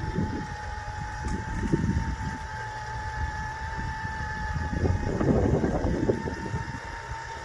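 Rough Country 12,000 lb electric winch running under load with a steady whine, pulling a stump. About five seconds in comes a burst of rougher, crackling noise.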